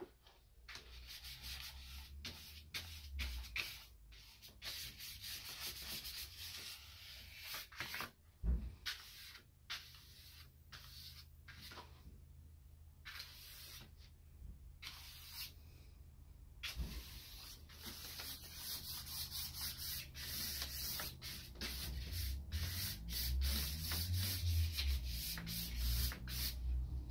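Repeated scratchy strokes and rubbing on a large sheet of cartridge paper, as willow charcoal is drawn across it and smeared by hand, with short pauses between strokes. There are some low thumps against the paper near the end.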